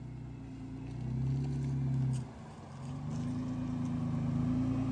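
Jeep engine revving under load as it works at a rock obstacle. The pitch and level rise about a second in, the throttle drops off briefly just after two seconds, then the engine picks up again and holds.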